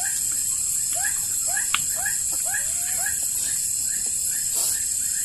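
A run of short, squeaky calls from an animal, each rising and falling, about two a second, over the steady high buzz of a night insect chorus.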